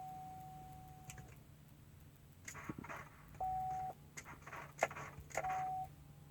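A Chevy Silverado's dashboard warning chime: one steady beep fading out in the first second, then two short beeps about two seconds apart. Clicks and rustling come in between.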